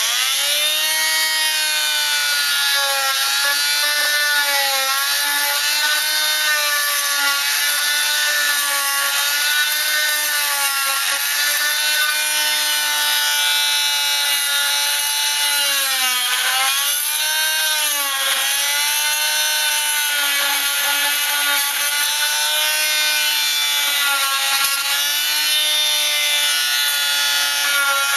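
Oscillating multi-tool cutting through drywall: a steady buzz that runs unbroken, its pitch dipping briefly a few times.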